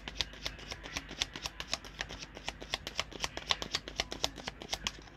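A deck of tarot cards being shuffled by hand: a steady run of quick, light card clicks and flicks, several a second.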